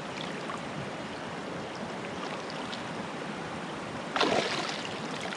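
Steady rush of river water running through rapids, with a short, louder burst of noise about four seconds in.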